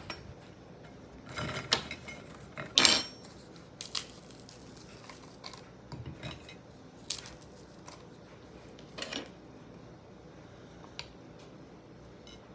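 A spoon clinking against a soup bowl, a scattering of separate strikes at irregular intervals; the loudest comes about three seconds in.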